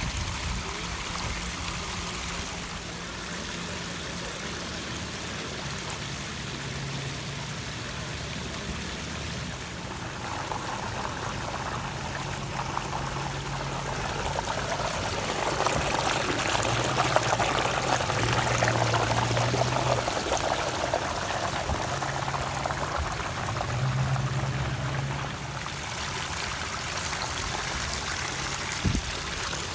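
Water splashing and trickling down the stone cascades of a pondless waterfall, growing louder about ten seconds in and easing off near the end, with a low steady hum underneath.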